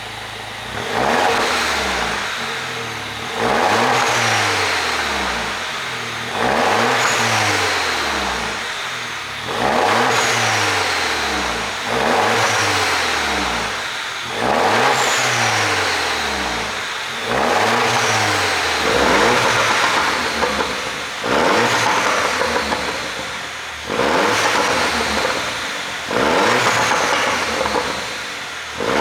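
2009 Mini Cooper S's turbocharged 1.6-litre four-cylinder revved again and again, about eleven times, each rev jumping up and then falling back, with exhaust pops and crackles on the way down, the sound a pop tune gives.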